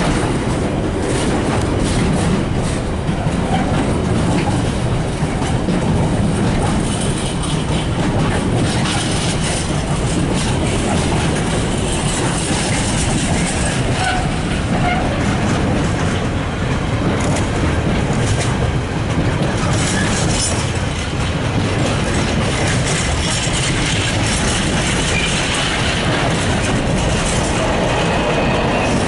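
Container flat wagons of a freight train rolling past close by: a steady rumble of steel wheels on the rails with a running clatter of clicks from the wheels.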